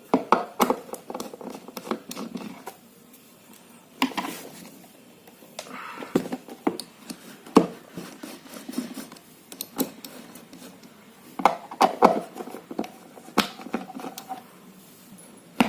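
Screws being undone with a screwdriver from the underside of a home theatre unit's casing: irregular clicks, scrapes and small taps of the tool and screws.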